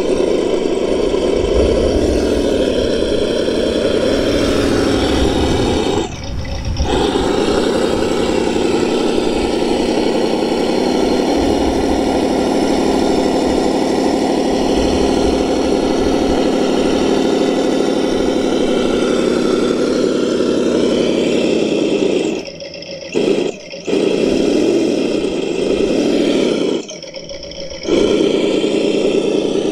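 Simulated V8 engine sound played by a Reely sound module's speaker aboard a 1:10 Traxxas TRX-4 Ford Bronco RC crawler. It runs as a steady drone, dipping briefly about six seconds in and a few times in the last eight seconds.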